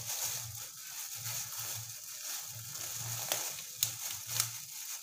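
Rustling and crackling as hands sort and handle vegetables, with three sharp snaps in the second half.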